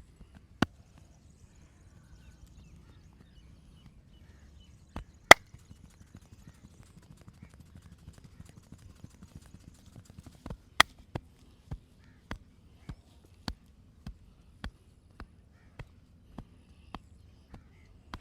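A massager's hands striking the body. First come a few isolated sharp slaps, the loudest about five seconds in. From about eleven seconds in they settle into a steady beat of roughly one strike every 0.6 s.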